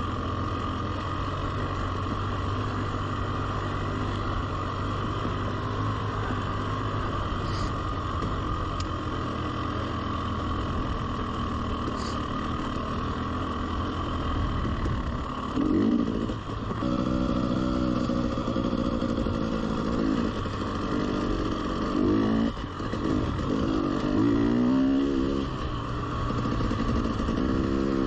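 A 300cc two-stroke enduro dirt bike's engine running, a steady drone at low speed; from about halfway the revs rise and fall repeatedly as the bike accelerates and backs off.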